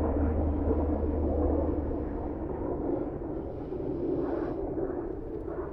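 A steady rushing, rumbling noise of moving air striking the microphone, heaviest in the low end at first and easing slightly as it goes on.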